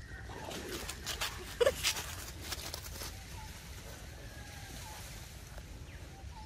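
Dry fallen leaves rustling and crunching in a run of short crackles, from about half a second in to about three seconds, loudest with a brief low thud about a second and a half in.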